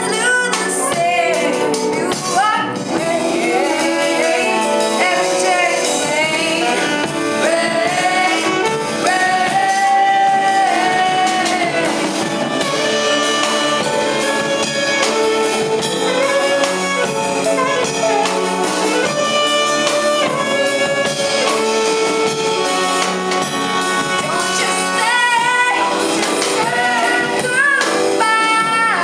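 A live band of piano, electric bass, guitar and drums playing a slow pop ballad, with singing and an alto saxophone carrying long held melody lines over it.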